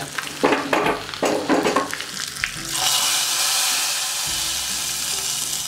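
Tempering of garlic, dried red chilli and curry leaves crackling in hot oil in a small pan. About two and a half seconds in, it is poured into the sambar, which sets off a loud, steady sizzle that slowly fades.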